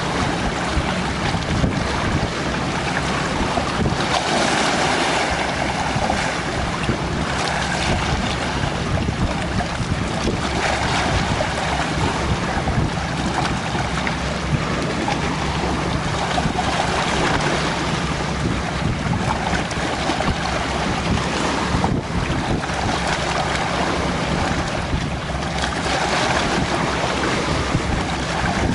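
Wind blowing across the microphone in a steady rush, with choppy lake water washing against the rocky shore.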